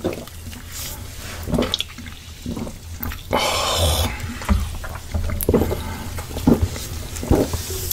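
Cola drunk straight from a plastic bottle: a short fizzing hiss a little after three seconds in, then a string of gulps, among the small mouth sounds of eating.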